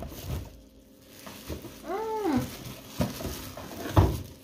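A dog whines once, briefly, rising then falling in pitch, about two seconds in. Plastic wrapping rustles and knocks as a boxed appliance is handled, with the loudest knock near the end.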